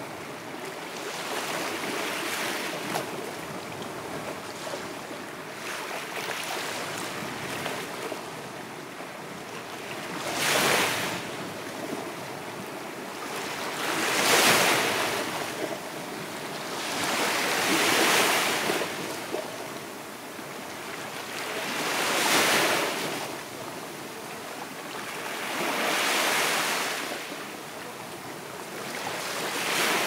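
Small sea waves washing up on a sandy shore, each one a rush of surf that swells and fades. For the first ten seconds the sound is a steadier wash; after that the waves come evenly, about every four seconds.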